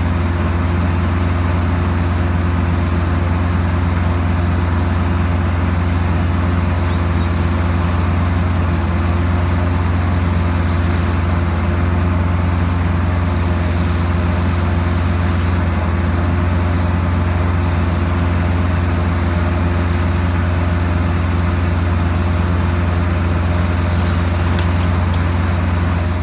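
A six-row John Deere cotton picker running steadily: a loud, unbroken diesel drone with a strong low hum.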